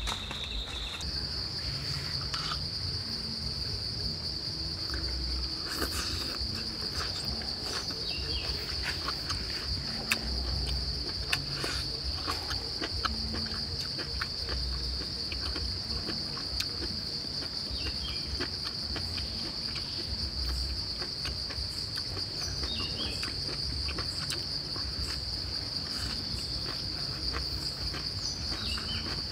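Insects droning steadily at a high pitch, the drone stepping slightly higher about a second in, with scattered small clicks and soft taps as someone eats with bamboo chopsticks.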